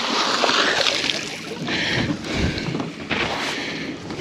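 A thrown boat anchor splashing into lake water, then its rope paying out over the pontoon rail in short hissing rushes as the anchor sinks.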